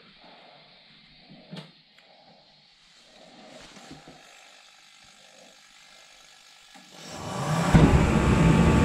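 Forced-air shop heater running: a loud, steady fan-and-burner noise that swells in about seven seconds in. Before that only faint shuffling and a single click.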